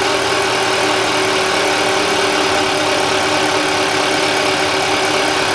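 Bosch diesel injection-pump test bench driving an overhauled Bosch H-series injection pump at a steady speed: a loud, unchanging mechanical run with a steady pitched hum over dense clatter and hiss.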